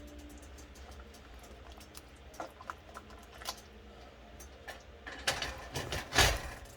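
Scattered light clicks and knocks, with a cluster of louder knocks about five to six seconds in.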